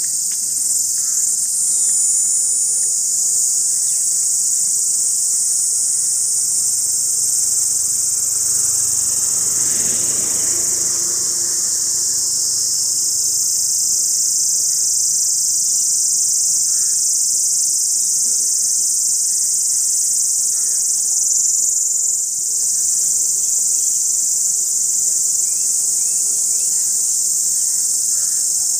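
Cicada singing: a loud, continuous, high-pitched buzz that holds steady, dipping briefly about twenty-two seconds in.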